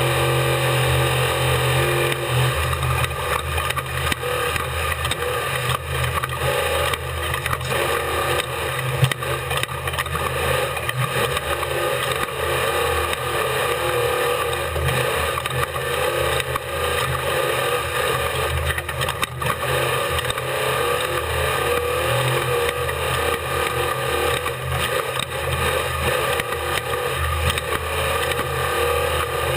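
Race vehicle's engine running continuously at speed through a lap, a loud, unbroken din, with one brief sharp click about nine seconds in.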